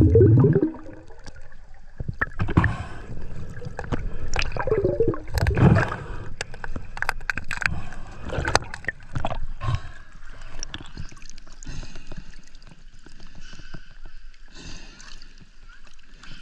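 Water gurgling and sloshing close to the microphone, with irregular clicks and knocks. The louder gurgling bursts come at the start and about five seconds in, and it is quieter in the second half.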